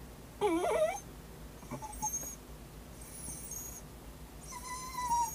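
A dog in labour whimpering and whining: a short call rising in pitch about half a second in, thin high squeaks in the middle, and a longer high whine near the end. These are the sounds of her straining through contractions.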